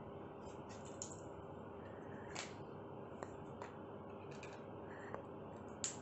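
Scattered light clicks and taps, about six in all, with the loudest near the end, as an Indian ringneck parakeet's claws and beak meet the tiled floor and a plastic food tray. A faint steady hum runs underneath.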